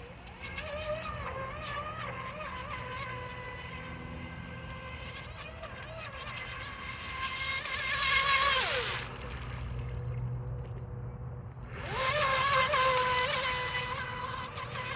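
High-pitched whine of a DEERC brushless RC racing boat's electric motor under throttle, its pitch wavering as the boat runs. It swells about eight seconds in, drops away with a falling pitch as the throttle is let off, and picks up loud again about three seconds later.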